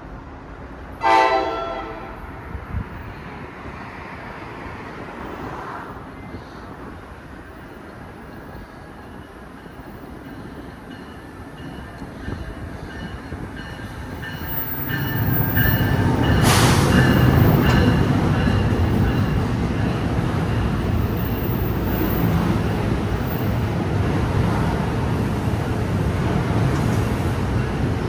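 A train horn gives one short blast about a second in. From about halfway, a train's rumble and wheel noise builds quickly and stays loud as it runs past.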